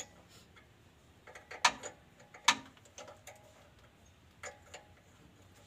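A hand wrench clicking and clinking against metal fittings on the underside of a car's gearbox as bolts are worked loose to lower the gearbox. The clicks are sharp and irregular, coming in small clusters, some ringing briefly.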